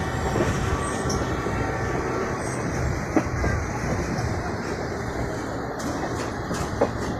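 Passenger train running at speed, heard from inside a carriage at the window: a steady rumble of the wheels and carriage on the track, with two short sharp knocks, one about three seconds in and one near the end.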